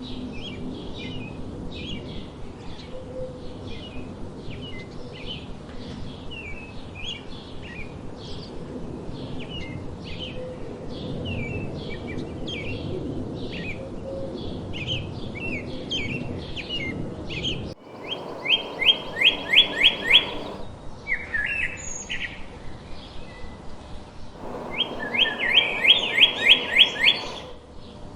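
Songbirds singing. First a steady run of short, repeated chirps over a low background rumble. Then, after an abrupt change in the recording, a different bird gives two loud, fast trills of rapidly repeated notes, a few seconds apart.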